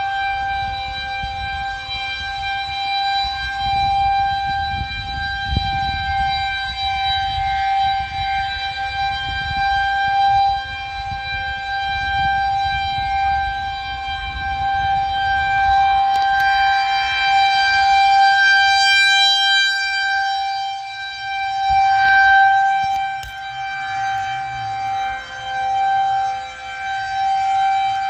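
Federal Signal 2001-130 electromechanical outdoor warning siren sounding a tornado warning, holding one steady pitch. Its loudness swells and fades as the rotating horn sweeps past.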